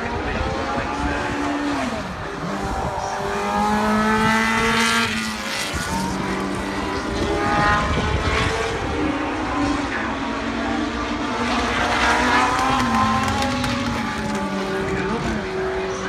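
Historic Formula 1 cars' Cosworth DFV 3.0-litre V8 engines racing past on the circuit, several in turn, their engine notes rising and falling as they accelerate, change gear and pass.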